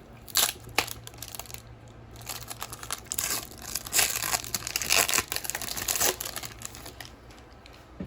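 Upper Deck 2018-19 Series 1 hockey card pack wrapper being torn open and crinkled by hand, in irregular crackling bursts that are busiest in the middle and die away near the end.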